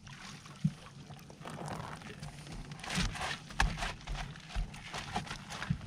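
Scattered knocks and rustling as a landing net holding a walleye is lifted over the side and into an aluminium fishing boat.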